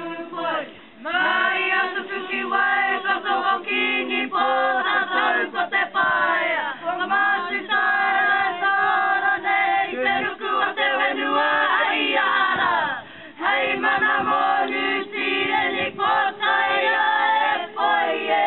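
A mixed group of men's and women's voices singing together unaccompanied, in long held phrases broken by short pauses.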